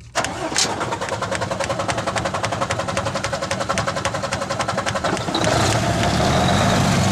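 Mercedes-Benz Actros 1841 truck diesel engine cranking on the starter in a fast, even rhythm for about five seconds, then catching and running steadily. The long crank is the hard start that the mechanic suspects comes from low fuel-injector pressure.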